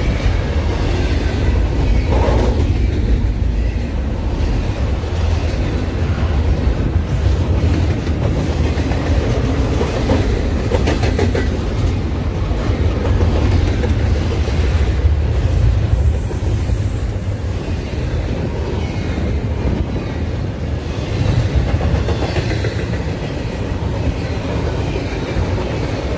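Double-stack intermodal well cars and autoracks of a freight train rolling past close by, a steady loud rumble of wheels on rail. A run of rapid, evenly spaced wheel clicks comes about ten seconds in.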